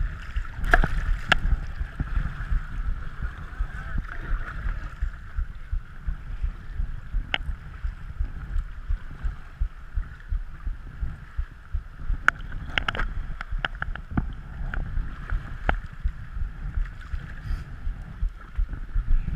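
Paddling a kayak down a river: a steady rush of moving water around the hull and paddle strokes, with a low, gusty rumble of wind on the microphone and a few sharp clicks now and then.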